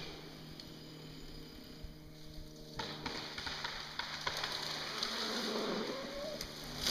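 Stihl MS 460 chainsaw idling steadily. From about three seconds in, scattered sharp cracks and crackles join it and grow louder.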